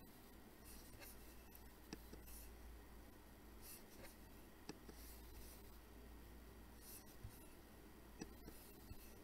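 Near silence: a faint steady hum and hiss of room tone with a handful of soft, scattered clicks of a computer mouse.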